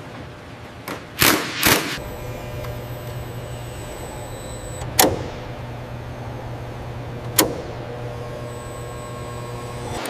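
Two short, loud bursts from a handheld pistol-grip power tool on an airframe fitting, then a steady electric machine hum with a thin high whine, broken twice by a sharp metallic clack.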